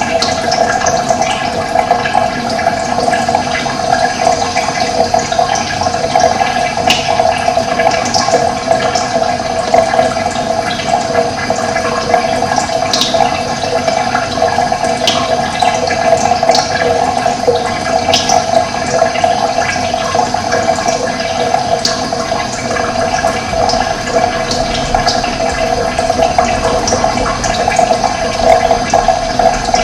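Running water flowing steadily, with brief high bird chirps scattered through it.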